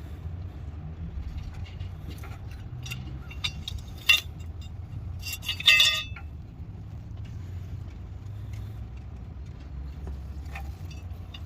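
Light metal clinks and taps from handling tools and parts, with one sharp click about four seconds in and a louder ringing clink near six seconds, over a steady low hum.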